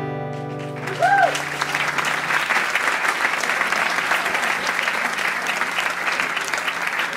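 The final acoustic guitar chord rings and fades out. About a second in, the audience breaks into steady applause, with a brief rising-and-falling call at its start.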